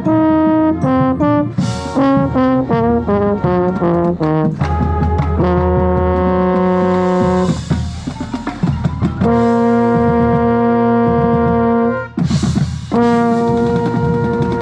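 Marching band brass playing, with a euphonium right at the microphone: a quick run of short notes, then long held chords, broken about twelve seconds in by a burst of percussion hits before another held chord.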